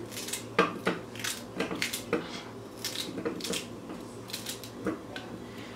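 A kitchen knife cutting through celery stalks held in the hand, about a dozen irregular short cuts, with the pieces dropping into a blender jar.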